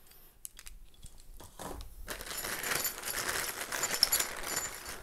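A few light clicks, then from about two seconds in a clear plastic parts bag crinkling as it is handled and opened.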